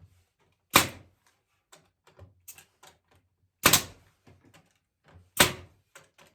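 Three sharp knocks of a hammer striking the walnut chair parts, spaced about one and a half to three seconds apart, with lighter taps between.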